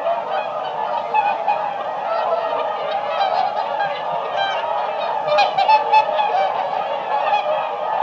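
A flock of swans calling, with many overlapping calls in a steady, dense chorus that swells briefly about five and a half seconds in.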